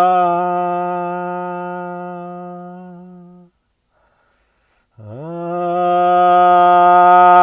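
A man chanting one long, low, steady note with strong overtones; it fades away about three and a half seconds in. After a short silence a new note starts at about five seconds, sliding up from below to settle on the same pitch and growing louder.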